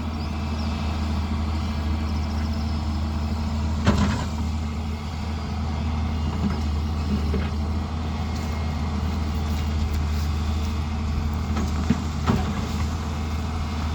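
Diesel engine of heavy construction machinery running steadily, with a few sharp metallic knocks, the loudest about four seconds in and two more near the end.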